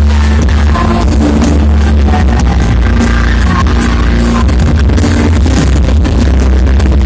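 Loud electronic music played through a sound system, with a heavy, steady bass throughout.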